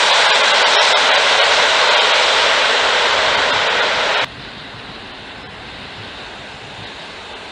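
Train passing close by: loud, steady rolling noise that cuts off abruptly about four seconds in, leaving a quieter steady hiss.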